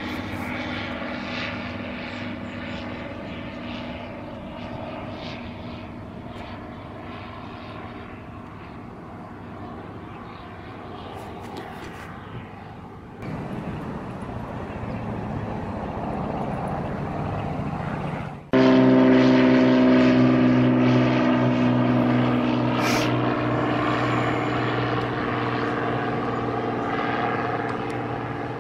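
Single-engine propeller light aircraft flying overhead: a steady engine-and-propeller drone. It changes abruptly twice as one plane's sound gives way to another's, and the last is the loudest, starting about two-thirds of the way in.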